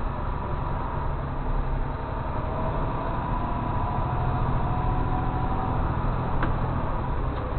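Tow truck driving: a steady low engine and road rumble, with two faint clicks near the end.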